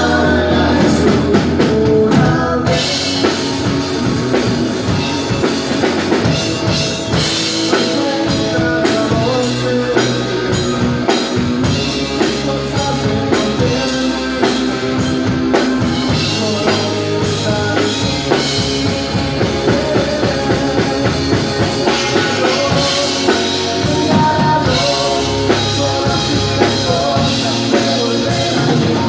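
Rock band playing live: a drum kit keeps a steady beat under the band, with singing.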